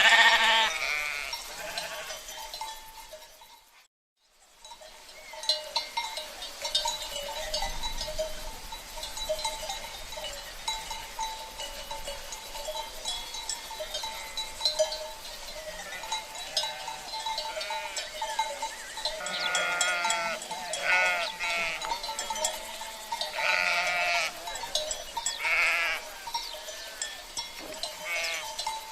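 Flock of sheep bleating over the clanking and ringing of cowbells, with a bleat at the start and a cluster of bleats in the second half. The sound drops out briefly about four seconds in.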